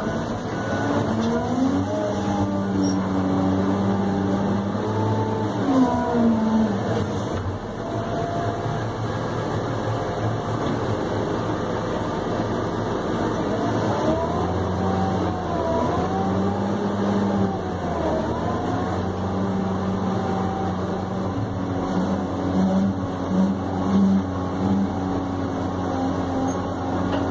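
New Holland RG140B motor grader's diesel engine running under way, heard from inside the cab, its pitch rising and falling several times as the engine speed changes. A loaded dump truck passes close alongside about halfway through.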